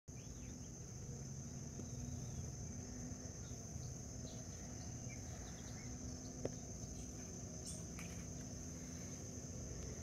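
Insects droning steadily at a high pitch, with faint short chirps scattered through and one small click about six and a half seconds in.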